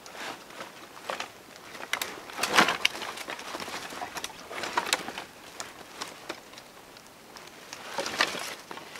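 Dry sticks and branches clattering and knocking together as firewood is gathered up from a pile, with irregular cracks and rustles; the loudest knock comes about two and a half seconds in.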